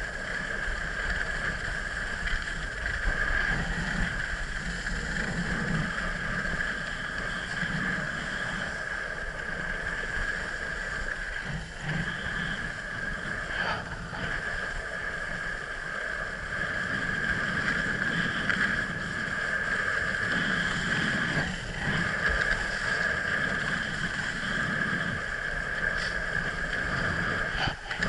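Steady rush of wind over the camera and the hiss of sliding on packed snow during a fast downhill run, with a few short knocks from bumps in the slope.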